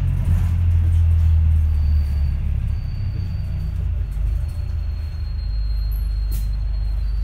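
Volvo B5LH hybrid double-decker bus running: a low drone, heaviest for the first couple of seconds and then easing, with a thin, steady high-pitched whine from about two seconds in.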